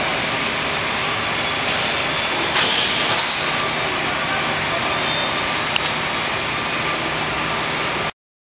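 Steady loud rushing noise of a busy metal fabrication shop floor, with a brighter hiss for about a second near the middle and one small click later on; it cuts off abruptly near the end.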